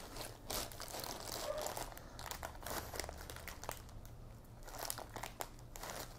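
Plastic wrap crinkling around a bamboo sushi mat as hands roll it up and press it tight to shape a sushi roll, in soft, irregular crackles.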